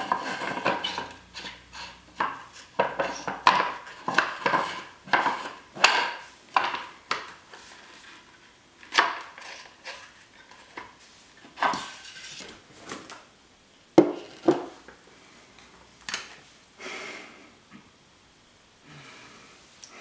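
Hard plastic handling sounds as the large lens hood of a Canon EF 500mm f/4L IS lens is worked off the lens and handled: a dense run of short scrapes and clicks in the first half, then sparser knocks, the sharpest about 14 seconds in.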